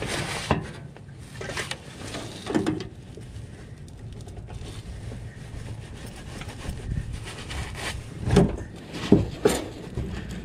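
Metal clinks and scrapes of pliers and a wrench working at a stuck pin and spring on a lawn tractor mower deck's tensioner linkage, with a few sharper knocks near the end.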